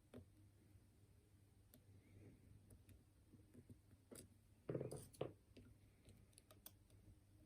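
Faint, scattered clicks of a lock pick and tension wrench working the pins of a six-pin Lockwood oval lock cylinder, with a short louder rattle of a few knocks about five seconds in.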